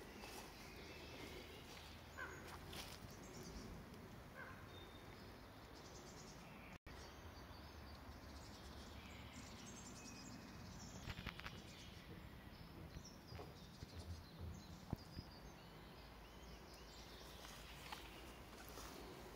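Near silence: faint outdoor ambience with a few short, distant bird chirps and some soft knocks about halfway through.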